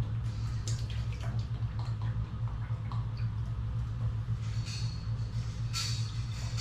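Automotive clear coat and hardener being poured and mixed in a mixing cup: small drips, trickles and clicks, over a steady low hum. A brighter hissing pour comes near the end.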